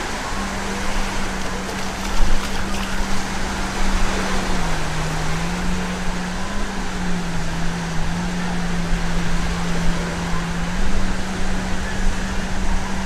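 Seaside noise of surf and wind, with a steady low hum running through it that dips slightly in pitch for a few seconds in the middle.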